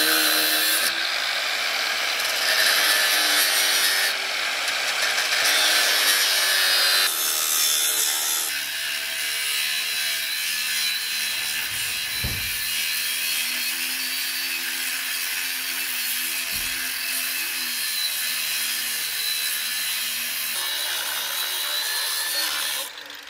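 Corded angle grinder cutting into the steel casing of a concrete-filled safe: a loud, gritty rasp from the cutting disc over the motor's wavering whine. The level steps up and down a few times, and the cutting stops abruptly near the end.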